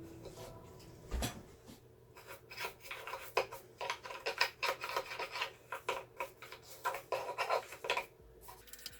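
Quick, irregular rubbing strokes on the speaker's particle-board cabinet, several a second, starting about two seconds in and stopping near the end.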